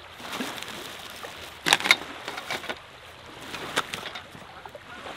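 Rustling and handling noise from a nylon carry bag and plastic packaging being moved and searched through, in a string of short bursts, the loudest about two seconds in and another near the end.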